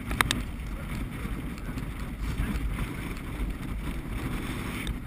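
Steady low rumble of wind on the microphone of a camera riding on a trotting sulky as it runs over the sand track, with two sharp clicks just after the start.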